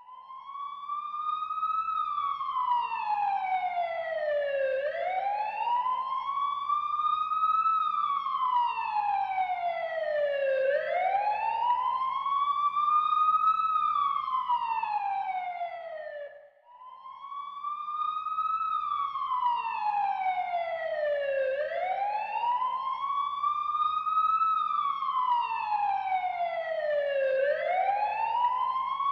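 Ambulance siren sounding a slow wail: the pitch climbs for about three seconds, then falls for about three, over and over. About halfway through it fades out for a moment and starts up again.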